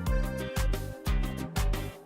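Background music with a strong, steady bass beat about twice a second and bright plucked or keyboard notes above it.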